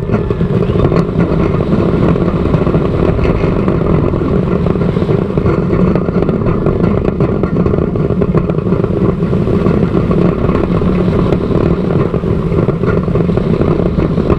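Bolliger & Mabillard giga coaster train (Fury 325) running on its steel track at high speed, the track roar mixed with heavy wind rushing over the onboard microphone. Loud and steady throughout.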